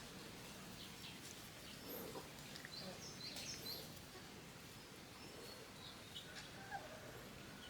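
Faint outdoor background hiss with scattered short, high bird chirps.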